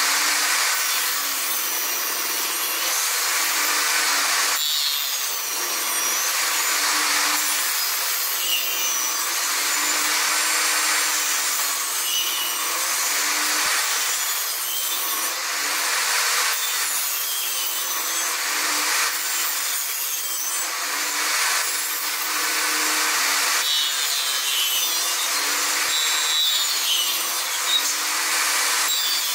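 Table saw running and cutting a row of slots into the end of an upright board held in a sliding jig. The motor note dips and recovers about every two seconds as the blade passes through the wood.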